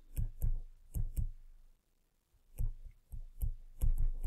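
A stylus tapping and clicking on a drawing surface while words are handwritten, in irregular clusters of short clicks with a brief pause in the middle.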